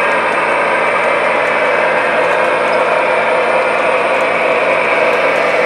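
Model trains running on a three-rail layout: a loud, steady mechanical hum of locomotive motors and wheels rolling on the track, with no chuffing rhythm.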